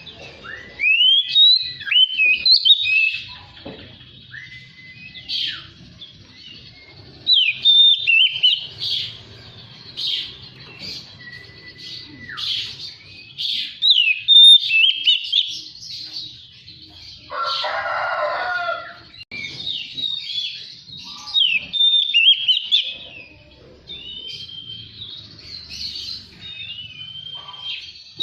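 Oriental magpie-robin singing: a run of varied whistled phrases that rise and fall, with a few long steady whistles. About two-thirds of the way through there is a harsher, scratchy burst.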